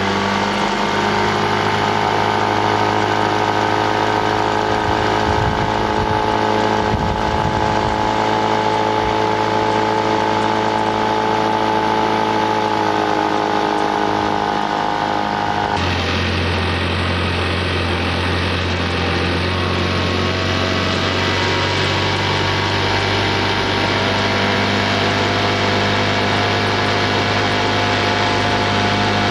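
Motorboat engine running steadily with a constant droning note. Its pitch shifts abruptly to a slightly different, lower note just past halfway.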